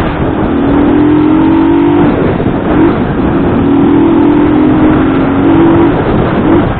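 Motorcycle engine pulling under acceleration twice, its note rising a little each time, over heavy wind rush on the microphone.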